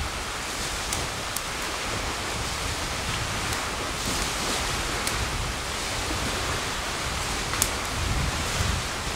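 Wood campfire burning, with a few sharp crackling pops (about a second and a half in, around five seconds, and a loud one near the end) over a steady rushing noise with a low rumble.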